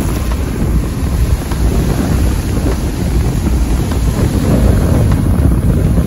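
Sea surf breaking and washing up over the sand, with heavy wind buffeting on the microphone.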